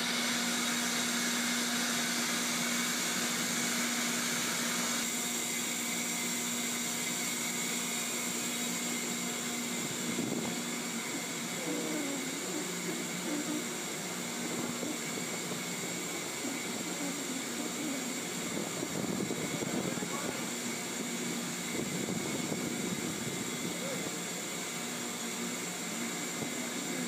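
Steady drone of offshore oil platform machinery: an even rush of noise with a constant hum underneath, with faint voices in the background partway through.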